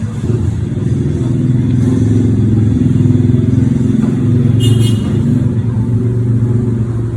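A motor vehicle's engine running close by, loud and steady, with a short high-pitched beep about four and a half seconds in.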